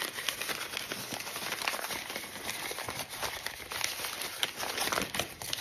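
Brown kraft paper packing crinkling and rustling as it is handled and opened, with a continuous irregular crackle.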